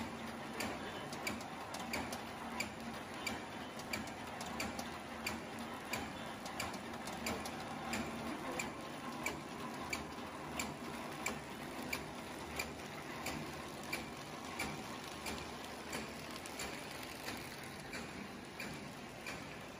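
Automatic V-bottom kraft paper bag making machine running, a steady mechanical hum with a regular clack about one and a half times a second.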